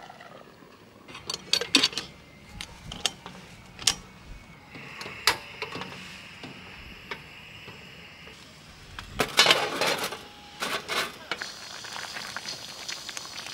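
Cookware and utensils clinking and knocking in a series of sharp clatters, with the busiest burst about nine to ten seconds in. A steady high hiss runs for a few seconds in the middle.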